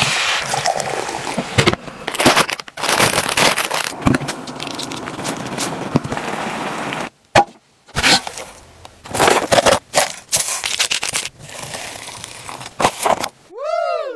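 Close food-handling sounds in a series of short cuts: crackling and scraping of plastic containers and packaging as food is poured and handled. Near the end a short pitched tone rises and then falls.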